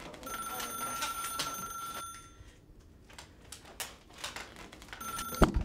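Corded landline telephone ringing with an electronic tone: one ring of about two seconds, then a second ring near the end, cut short by a loud thump as the wooden chair tips over onto the floor and the handset is knocked off. Scattered small clicks and rustles between the rings.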